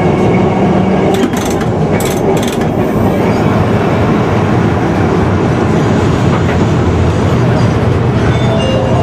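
Vintage street tram with nose-suspended traction motors running along street track: steady motor and wheel-on-rail noise. A few sharp clicks come between one and three seconds in.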